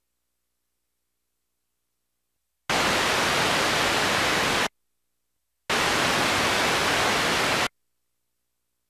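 Two bursts of loud static hiss, each about two seconds long, cutting in and out abruptly with a second of silence between them. This is playback noise from a home videotape transfer.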